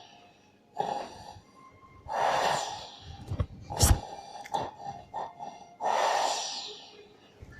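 A person's laboured, noisy breathing: long hoarse breaths about every three to four seconds, the sign of a breathing problem. A sharp click comes just before the fourth second.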